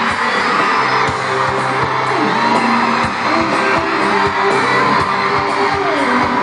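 Live pop music with singing and a steady drum beat, over a whooping, cheering arena crowd.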